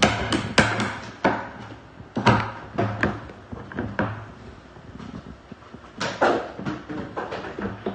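Irregular knocks and clunks from hands working inside a hollow plastic water holding tank, handling wiring along the pump stick, over a steady low hum.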